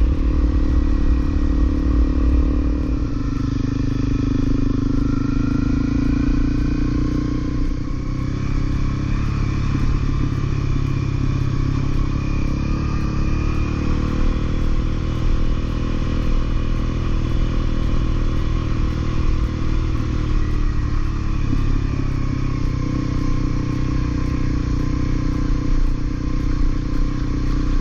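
Honda CRF250L single-cylinder four-stroke engine running under way, its note dropping about three seconds in and rising again near the end as the revs change.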